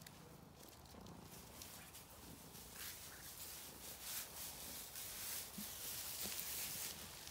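Domestic cat purring faintly, fading out about a second in, followed by soft rustling noises.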